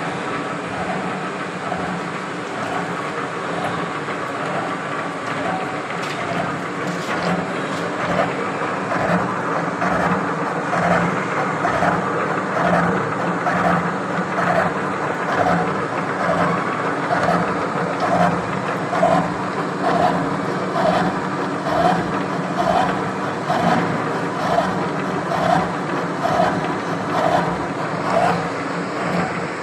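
Horizontal milling machine running, its arbor-mounted gear cutter cutting teeth into a steel gear blank. A steady machine hum, with a regular cutting pulse a little more than once a second.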